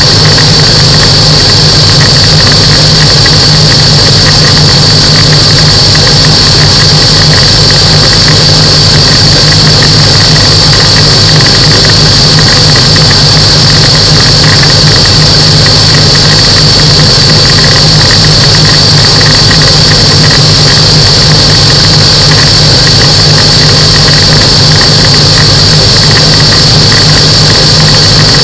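Microlight aircraft's engine and propeller running steadily in flight, a loud, unchanging drone with rushing air and a steady high-pitched whine over it.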